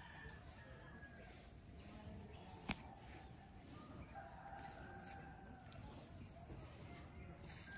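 A faint rooster crowing, one drawn-out crow about four seconds in, over quiet outdoor background. A single sharp click a little before it is the loudest moment.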